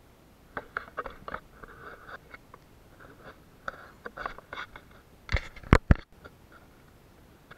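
Irregular crunching clicks and scrapes close to the microphone, with three sharp, loud clicks about five and a half seconds in, followed by a brief dropout in the sound.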